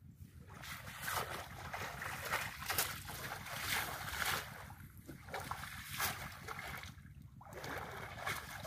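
Water splashing and sloshing as a cast net is thrown into shallow muddy water and hauled back in by hand, coming in uneven bursts with brief lulls.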